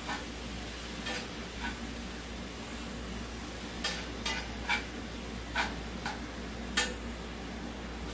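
A cooking utensil scraping and clicking against a skillet as ground beef is stirred: about eight irregular strokes over a steady low sizzle of the browning meat.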